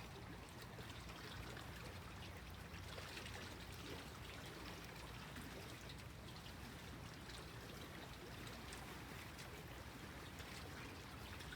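Small waves lapping at the water's edge: a faint, steady wash of water with little splashes and trickles.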